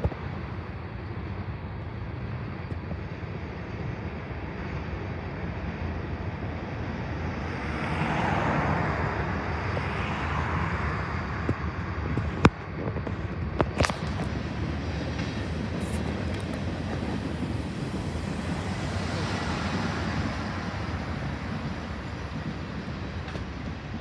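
Manifest freight train's cars rolling past, a steady rumble with no horn. Cars on the road pass close by twice, swelling and fading, and there are a few sharp clicks about halfway through.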